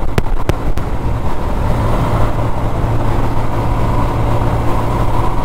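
Motorcycle engine running steadily at cruising speed with a constant hum and road noise, heard from the rider's own bike. A few short clicks in the first second.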